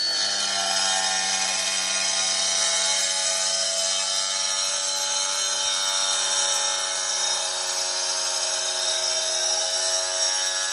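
Stihl TSA 230 battery-powered cutoff saw running at full speed, its blade cutting through a slab of natural bluestone with a steady whine.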